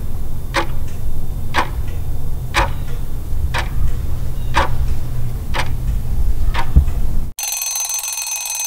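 Countdown timer sound effect: a clock ticking about once a second over a low steady hum, then an alarm bell ringing near the end as the time runs out.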